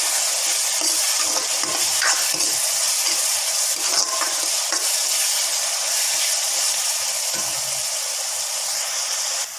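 Half-sautéed chopped onions and curry leaves sizzling in hot oil in an iron kadai, stirred with a steel spoon that scrapes across the pan.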